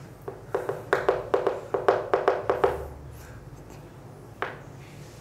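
A quick run of about a dozen light taps on a hard surface over roughly two and a half seconds, then a single click about four and a half seconds in.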